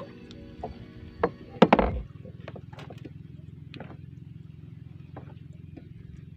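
Background music ends about two seconds in, among a few loud knocks. A boat's engine then runs steadily at idle, a low, evenly pulsing hum.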